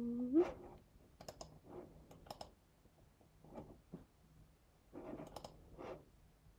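Faint, scattered clicking of a computer keyboard and mouse, a few clicks at a time in short clusters.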